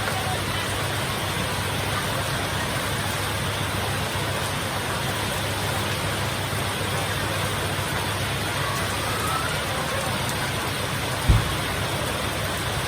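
Heavy rain falling steadily, with one short low thump near the end.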